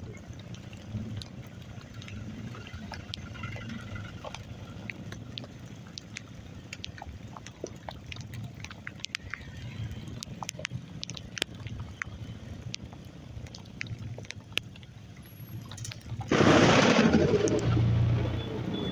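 Heavy rain with scattered sharp drop ticks over a steady low rush. About sixteen seconds in, a sudden loud rush of noise swells for a couple of seconds, then eases.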